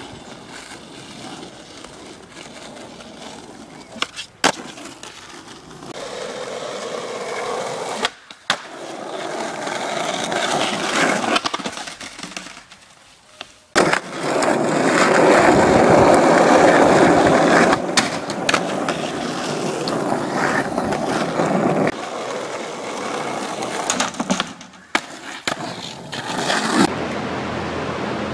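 Skateboard wheels rolling on asphalt with a steady rumble that changes at each cut, loudest about halfway through. Now and then there is a sharp clack of the board.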